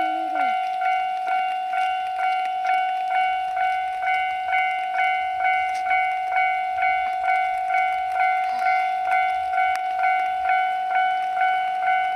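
Japanese railway level-crossing alarm ringing its repeated electronic ding at about two strikes a second. A low rumble comes in about three seconds in.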